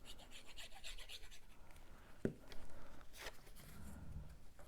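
Cardstock pieces being handled and slid across a craft surface: soft paper rustling and scratching, with a sharp tap about two seconds in and a duller thud near the end.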